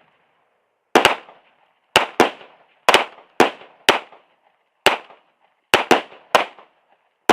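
Live gunfire from a firearm: about ten sharp shots in a steady string, sometimes two in quick succession, roughly half a second to a second apart, each with a short echoing tail.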